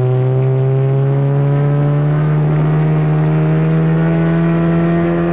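Automatic Honda's engine running under way, its note rising slowly and steadily as it picks up speed.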